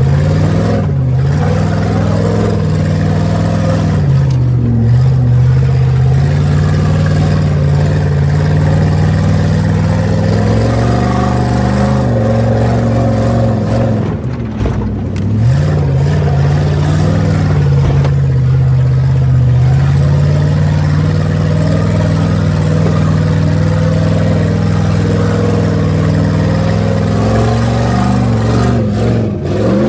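Jeep Grand Cherokee's 4.7-litre V8 running under load, heard from inside the stripped cab. The engine speed dips and picks up again several times and climbs sharply near the end.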